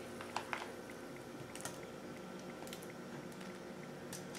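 Faint, scattered soft clicks and rustles as tofu cubes are handled out of a plastic container and set down on aluminium foil in a baking dish, over a faint steady hum.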